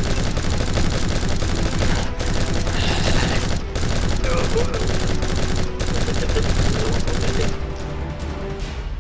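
Rapid, continuous machine-gun fire sound effect, with music under it; the firing stops about seven and a half seconds in.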